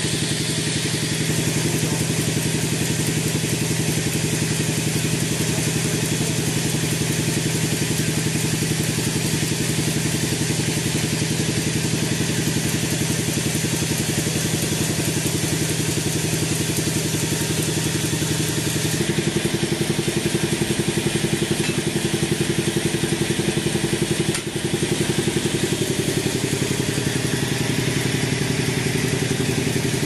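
Band sawmill running steadily as its blade cuts lengthwise through a teak log: a constant machine drone with a fast, even pulse from the mill's drive. The tone shifts abruptly about two-thirds of the way through.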